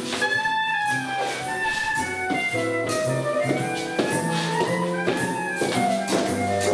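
Jazz music: a melody line over bass notes and a steady beat.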